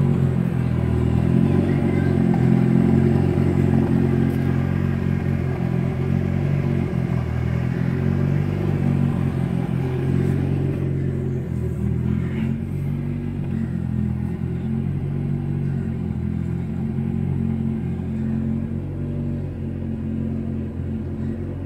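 Mitsubishi Lancer Evolution VI Tommi Mäkinen Edition's turbocharged four-cylinder engine running at a steady, low pitch, easing slightly about halfway through.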